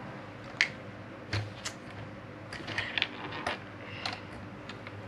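Plastic Lego Technic pieces clicking and clattering as they are handled and fitted together, a string of irregular sharp clicks with a short rattle in the middle.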